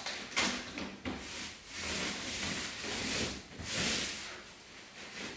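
Hands brushing and smoothing a woven sleeping mat on a wooden bed frame: several rustling swishes of varying length, one of them longer in the middle.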